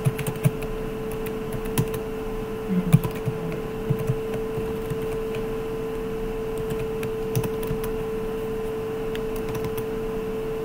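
Computer keyboard typing: quick bursts of keystrokes in the first half, then a few scattered keys later. A steady low hum runs underneath.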